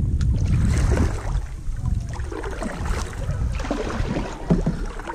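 Canoe paddling on a river: paddle strokes and water sounds against the hull, with a low wind rumble on the microphone that is strongest in the first couple of seconds.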